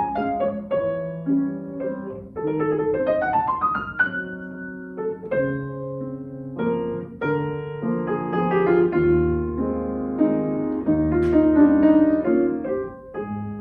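Solo piano playing a classical piece: single notes and chords, with a quick rising run about three to four seconds in and the loudest chords around eleven to twelve seconds in, then quieter.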